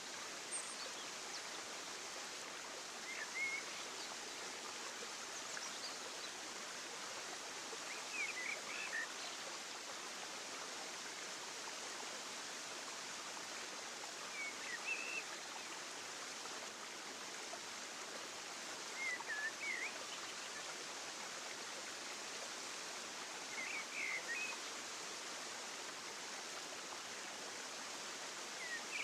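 Steady rushing outdoor ambience, like running water or wind, with a short high chirp about every five seconds.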